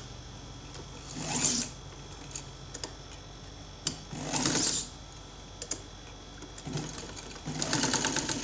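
Domestic straight-stitch sewing machine stitching through layered cotton fabric in three short runs of about a second each: about a second in, around four seconds in, and near the end. Each run is a quick rattle of needle strokes, sewing a securing stitch on a neck facing.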